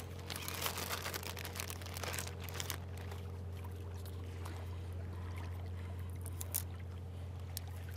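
Small waves gently lapping and trickling against shoreline rocks. Over them come light clicks and rustles of gloved hands handling a plastic syringe and a paper ID label, most of them in the first few seconds.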